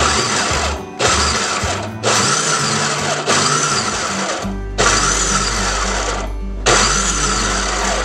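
Black & Decker Quick 'N Easy food processor on its low setting, pulsed on and off in repeated bursts of a second or so, chopping tomatoes, onion and cilantro into a chunky salsa rather than a watery one.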